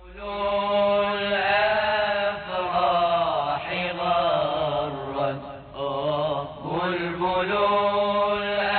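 A man's voice chanting long, ornamented held notes that waver and glide in pitch, in the style of a nasheed.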